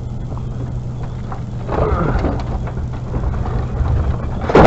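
Steady low hum of an idling vehicle engine under the noise of scrap metal and junk being shifted around. There is a scraping clatter about two seconds in and a loud bang just before the end.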